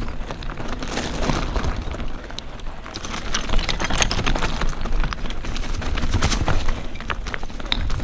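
Mountain bike tyres rolling fast over a loose stone trail: stones crunching and clattering in a dense, irregular crackle, over a steady low rumble.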